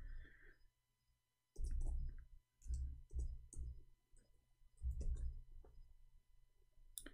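Typing on a computer keyboard: three short bursts of key clicks with soft low thumps.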